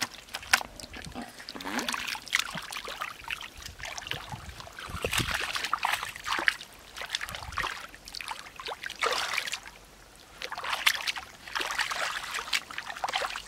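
Hands splashing and sloshing in shallow muddy water, with irregular splashes and trickling and a short lull about ten seconds in.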